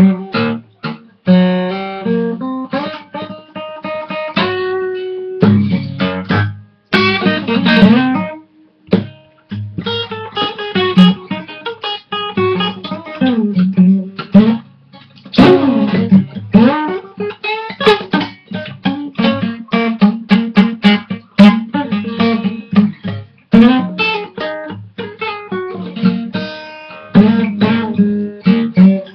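A guitar played solo in a blues style, mixing picked single-note lines with strummed chords, with several notes bent in pitch.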